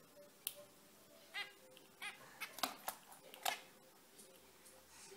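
Zebra finches calling: short, separate calls, about six in five seconds.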